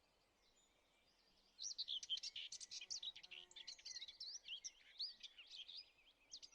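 Birds chirping and singing, a dense run of quick high chirps and short rising and falling calls, coming in about one and a half seconds in after near silence.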